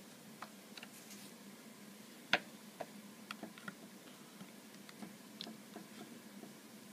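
Faint scattered clicks and light scrapes of a metal blade prying around the seam of a cheap Android tablet's plastic back case, its snap-in clips releasing one by one. One sharper click comes a little over two seconds in.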